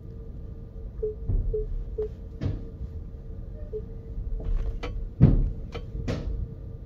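A NIO electric SUV creeping at walking pace into a battery swap station: a run of separate knocks and clunks, the loudest a heavy thump about five seconds in, over a faint steady tone.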